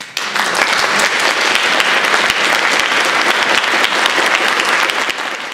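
Small audience applauding, the clapping breaking out all at once and holding steady.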